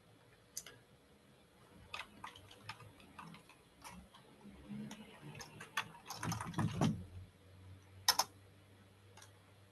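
Faint, scattered keystrokes on a computer keyboard, a little denser around six to seven seconds in, with one sharper click about eight seconds in.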